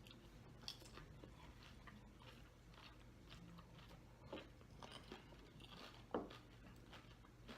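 Faint crunching and chewing of a crisp pani puri shell, with a few soft crunches spread through an otherwise quiet room.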